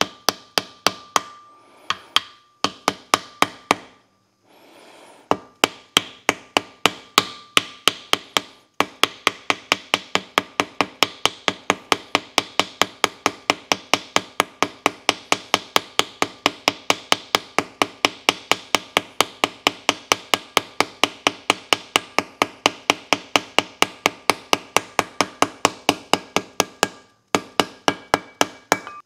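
Hammer driving a new wheel seal into a truck's one-piece hub and brake rotor: a long, steady run of sharp blows, about three or four a second, broken by a few short pauses early on and near the end. The first several seconds of blows carry a faint metallic ring.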